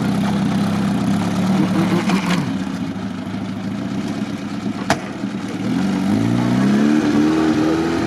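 Lifted ZAZ Zaporozhets off-roader's engine pulling away across deep sand, the revs climbing twice as it accelerates. A single sharp knock sounds about five seconds in.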